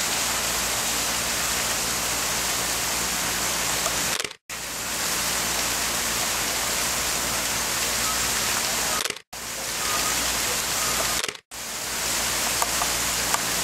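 Steady rushing hiss like falling water, cutting out briefly three times and fading back in.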